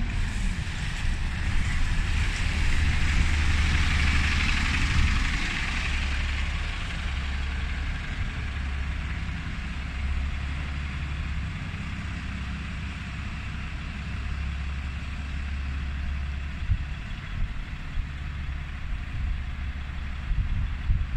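Double-decker bus pulling away and passing close by, its engine rumble and road hiss loudest a few seconds in, then settling to a steadier, lower engine drone as it moves off. A few short bumps near the end.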